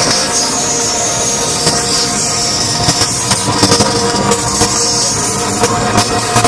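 Loud live music from a rock band with a symphony orchestra, sustained chords over a dense, steady wash of sound, with a few sharp hits.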